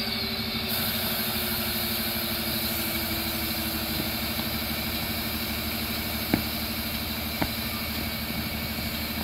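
Tata heavy truck's diesel engine idling steadily with a regular throb, and two sharp knocks a little after six and seven seconds in.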